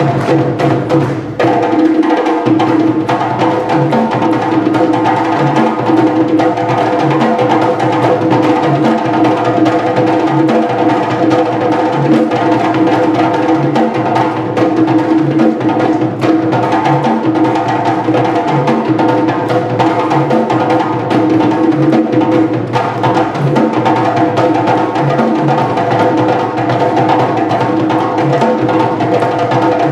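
West African drum ensemble of djembes and dunun drums (sangban, kenkeni, dununba) playing a continuous, steady interlocking rhythm. The low drum strokes recur at an even pulse throughout.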